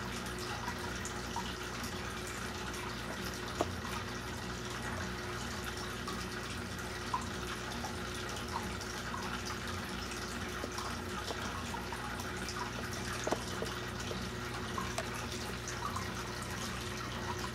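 Saltwater aquarium's circulating water trickling and splashing steadily, with a steady low hum underneath and a few small drips and ticks scattered through.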